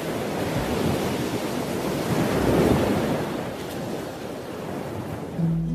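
Ocean surf rushing, swelling to a peak about two and a half seconds in and then easing off. A guitar note comes in just before the end.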